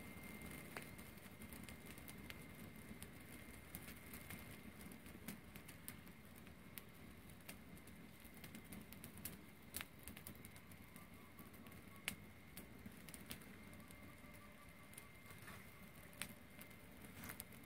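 Small open fire of dry grass crackling faintly, with scattered irregular pops and snaps.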